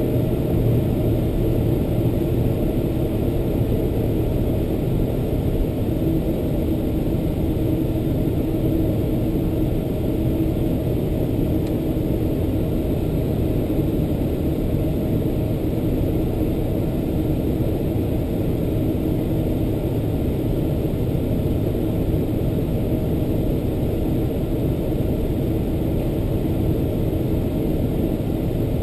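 Cabin noise of a Boeing 747-400 taxiing, its General Electric CF6-80C2 turbofans at low taxi power: a steady low rumble with a faint steady hum, no change in level.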